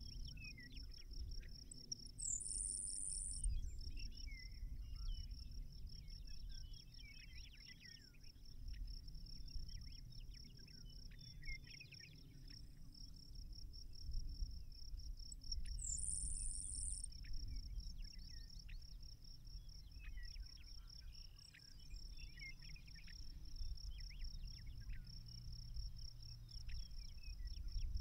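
Grasshopper sparrow singing its thin, very high buzz song twice, about 14 s apart, each buzz about a second long. Under it runs an insect's steady, high pulsing trill, along with a low rumble.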